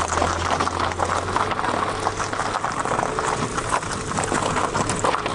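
Car tyres rolling over a gravel track: a steady, dense crackle of loose stones under the wheels.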